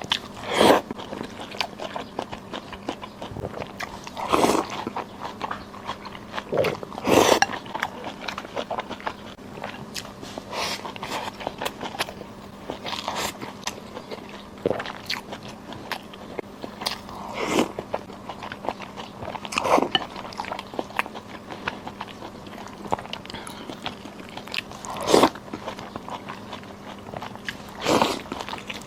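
A person eating close to the microphone: chewing and biting, with a louder, sharper mouthful sound every two or three seconds, over a faint steady hum.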